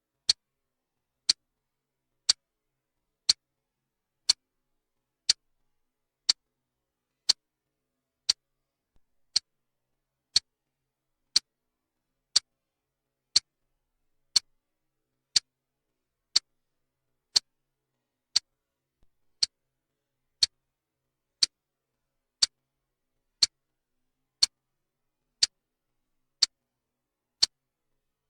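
Clock-tick sound effect for a countdown timer: one sharp, dry tick each second, evenly spaced, with silence between the ticks.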